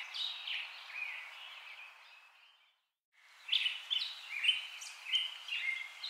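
Small birds chirping, many short falling calls over a light hiss; the chirping fades out about two and a half seconds in, drops to near silence for a moment, and fades back in just after three seconds.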